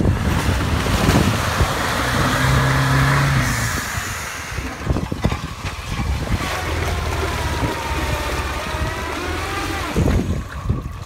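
Off-road 4x4's engine revving as it drives through a deep, water-filled muddy rut, with mud and water splashing around the wheels. The engine pitch rises and falls in the second half.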